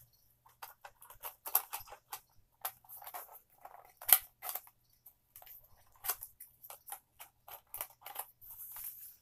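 Plastic parts of an aquarium filter being handled and fitted together: a run of clicks, knocks and rattles, with the loudest click about four seconds in.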